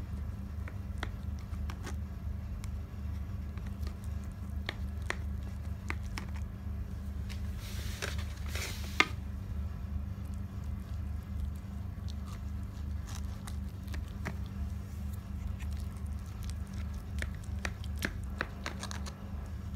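Knife cutting through a baked potato-and-béchamel gratin: soft squishing with scattered clicks and scrapes as the blade meets the foil-lined tray, over a steady low hum. About eight seconds in, a brief rustle ends in a sharp click, the loudest sound.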